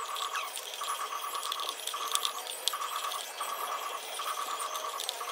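Socket ratchet wrench clicking in short quick runs, a little more than one run a second, as the nuts on a Bajaj scooter's wheel rim are tightened.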